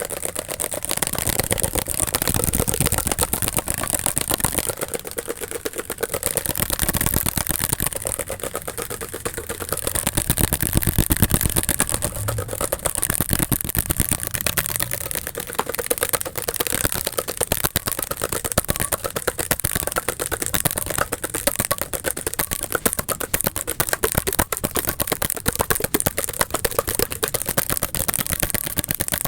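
Very fast, aggressive ASMR tapping: a dense, unbroken run of quick clicks and taps, with irregular surges in loudness.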